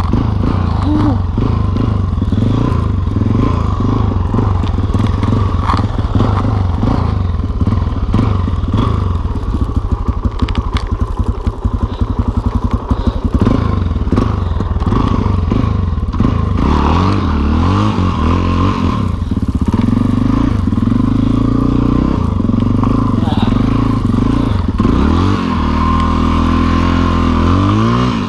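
Single-cylinder four-stroke dirt bike engine pulling in low gear through deep snow. Around the middle it settles to a slow, even thump at low revs, then its revs rise and fall again and again in the second half.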